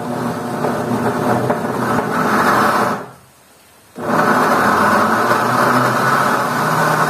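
Countertop blender running in two bursts of about three seconds each with a short stop between, pulsed to purée chopped guava and tomato with a little water.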